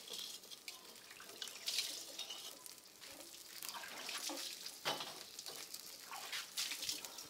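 Fish sizzling on a wire grill over glowing charcoal, an irregular crackle with scattered sharper pops.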